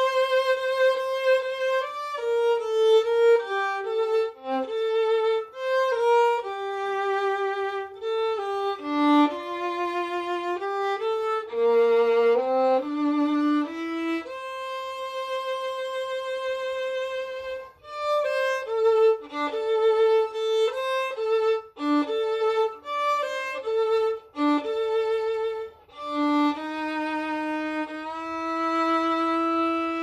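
Solo violin playing a slow Christmas melody, one note at a time, with vibrato on the held notes; a long note is held a little after the midpoint and the phrase settles on sustained notes near the end.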